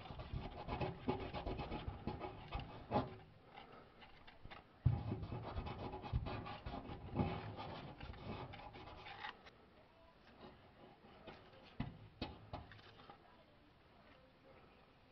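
Alcohol prep swab rubbed back and forth over the rusty steel of a fuel tank, cleaning around the rust hole before an epoxy patch: a dense, scratchy rubbing with small clicks that fades about nine seconds in, leaving only a few faint clicks.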